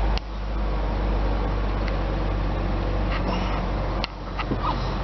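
2006 BMW 325xi's 3.0-litre inline-six idling, heard inside the cabin as a steady low hum, with a few light clicks.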